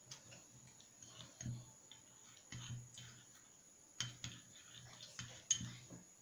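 Faint, irregular clicks and taps of a spoon against a container as yogurt is spooned into the crushed indigo and yeast mixture.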